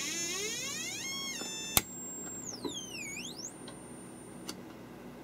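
Buzzy electronic tone from a homemade pulse frequency-generator circuit, changing pitch as its frequency knob is turned. It rises steadily, holds, and is broken by a sharp click about two seconds in. A high whine then dips and climbs back, holds steady, and stops with another click.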